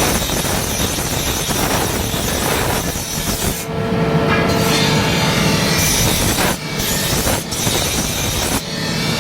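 Power grinder abrading a steel sword blade: a continuous rough grinding noise over a steady motor hum, broken by brief dips, as if the blade is lifted off for a moment, about six and a half, seven and a half and eight and a half seconds in.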